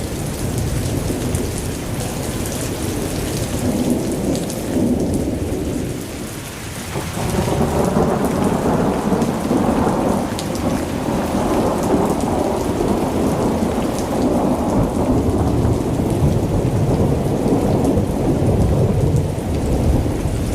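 Steady heavy rain with low rolling thunder. The rumble eases briefly about six seconds in, then swells again and carries on under the rain.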